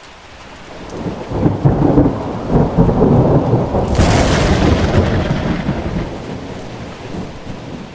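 Logo intro sound effect: a low rumbling noise that builds over the first two seconds, with a sudden hissing swell at about four seconds as the logo flashes in, then slowly dying away.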